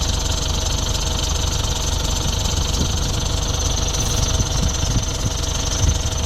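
Speed boat's engine running steadily at a low, even speed.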